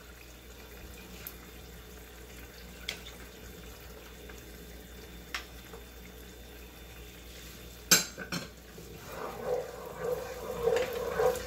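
Wooden spatula scraping and stirring sauce in a nonstick frying pan, with a few light taps and one sharp knock about eight seconds in. The stirring gets louder over the last couple of seconds.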